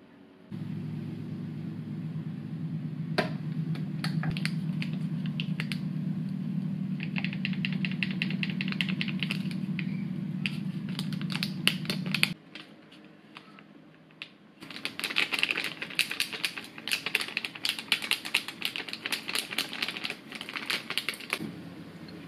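Baking ingredients being handled at a glass bowl on a kitchen scale: rapid clicking, tapping and rustling in two long runs, with a steady low hum under the first run.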